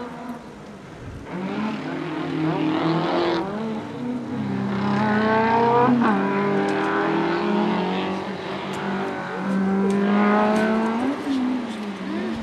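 Rally car engine racing up a hill-climb course, its revs climbing and then dropping sharply several times as it changes gear.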